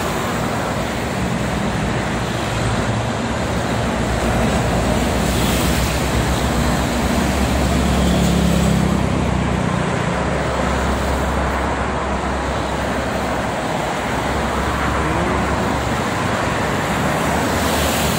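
Steady traffic noise of trucks and cars passing on a multi-lane highway, with a deeper low rumble swelling for a few seconds about midway as a heavier vehicle goes by.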